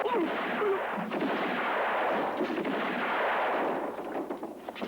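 Revolver fire: several shots in quick succession, blending into one long echoing din that dies away near the end.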